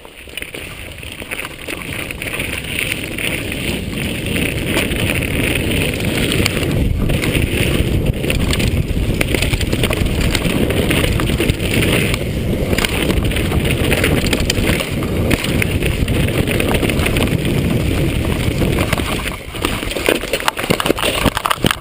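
Downhill mountain bike ridden fast, heard from a helmet camera: steady wind noise on the microphone over the rumble of tyres on gravel and dirt, building in the first couple of seconds as speed picks up.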